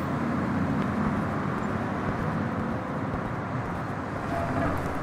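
Steady street traffic ambience: the even hum of road traffic on a city street.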